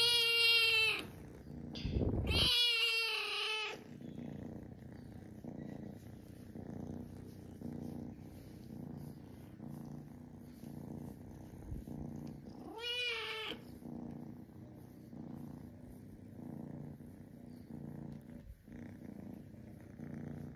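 A cat purring steadily while its head and chin are rubbed, meowing three times: once at the very start, again about two seconds in, and once more about 13 seconds in.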